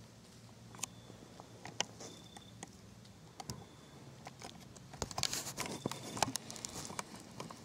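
Handling noise in a tree stand: scattered light clicks and taps, growing into a denser clatter and rustle from about five seconds in as the camera is swung round. A faint short high peep recurs every second or two over a low steady hum.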